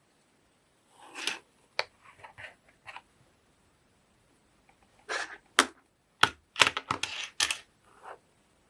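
Handling noises: a scatter of sharp clicks and knocks with short rustles, in two bunches, the second busier.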